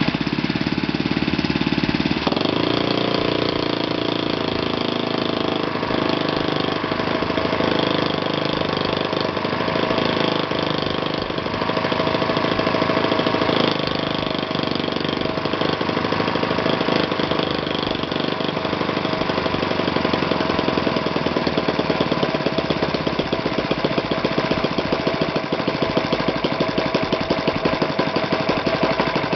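Magnum 120S four-stroke model glow engine being spun by an electric starter for about two seconds, then catching and running steadily on its propeller. The beat of the firing strokes becomes more distinct in the later part.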